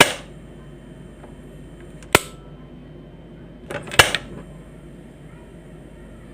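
Quantum gas stove knob being turned, its piezo igniter snapping with sharp clicks three times about two seconds apart; the third snap comes with a few smaller clicks of the knob around it.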